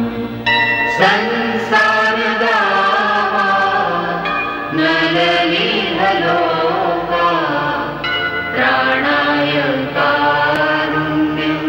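Background music of a devotional chant: voices singing a flowing melody over a steady low drone.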